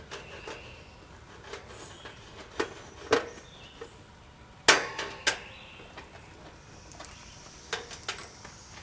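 A string of about six sharp clicks and clinks, the loudest a little under five seconds in: condenser fan motor wires being pulled off the spade terminals of an air conditioner's contactor and run capacitor.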